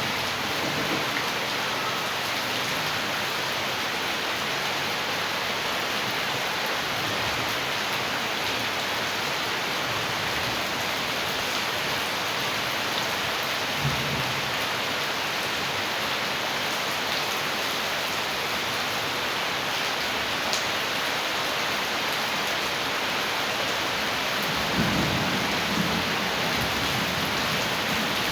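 Heavy rain and rushing rainwater runoff, a steady hiss, with brief low rumbles about halfway through and again near the end.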